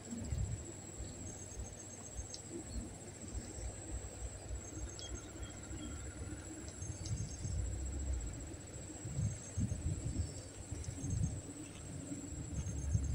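Insects trilling in a steady, high, pulsing buzz, with short chirps now and then over it and intermittent low rumbles underneath.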